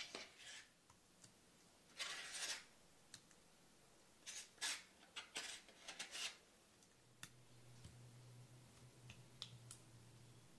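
A spoon scraping thick, creamy ingredients and dabbing them into a wooden bowl: a few short scrapes with light clicks between them. A faint low hum comes in about seven seconds in.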